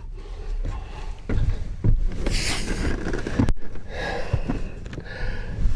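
Rustling and knocking of gear being handled, with a short hiss about two seconds in and a sharp click about three and a half seconds in.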